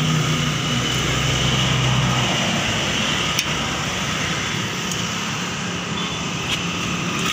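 A small engine running steadily with a steady hiss. Its low hum is strong at first and drops away about two seconds in.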